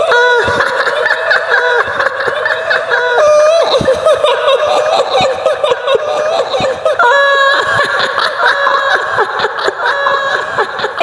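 Shrill, high-pitched female cackling laughter, the wavering ghost laugh of a kuntilanak, coming in broken, drawn-out phrases.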